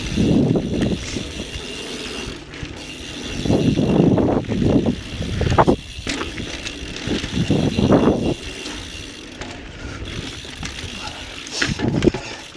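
Mountain bike's rear freehub ratcheting while the rider coasts down a dirt and rock trail, over steady tyre and trail rumble. The rumble swells three times, at the start, around four seconds in and around eight seconds in.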